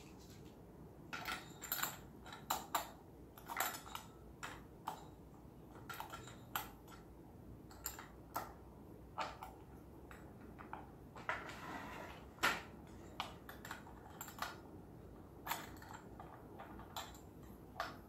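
Irregular sharp clicks and knocks of a wheel being fitted onto the metal frame of a folding beach-chair wagon cart, with a short scraping stretch a little past the middle.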